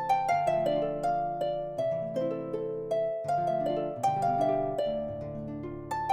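Background music of a plucked harp playing flowing, rippling runs of notes that ring on over one another.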